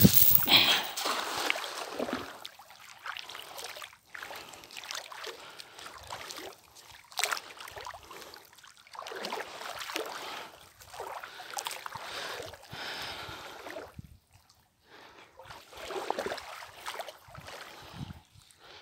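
A fishing net splashing into the water as it is thrown from a small boat, loudest right at the start, followed by uneven swishes and sloshes of water around the boat every second or two.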